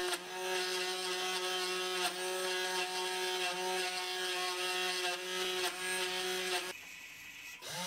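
Milling motor of a home-built CNC machine running at a steady pitch with a 2 mm end mill cutting into 4 mm acrylic (Plexiglas), heard as an even hum with several overtones. The hum drops away for about a second near the end, then comes back.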